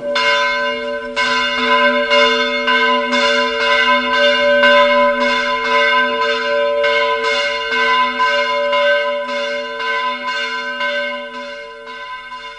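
Bells ringing in a peal, fresh strikes about twice a second over a steady ringing hum, easing off a little near the end.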